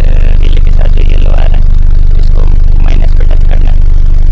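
Tata dumper truck's diesel engine idling, a loud steady low drone.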